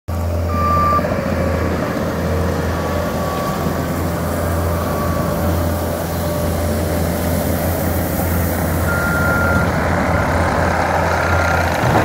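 Compact track loader's diesel engine running steadily under load, with the short beeps of its backup alarm sounding a few times.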